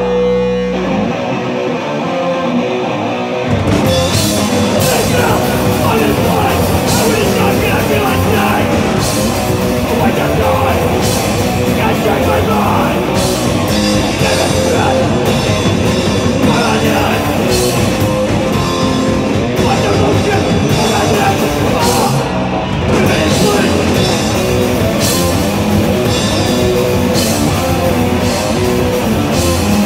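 Live punk band playing loud, distorted guitars, bass and drums with crashing cymbals. For the first few seconds the bass and drums drop out, then the full band comes back in about three and a half seconds in.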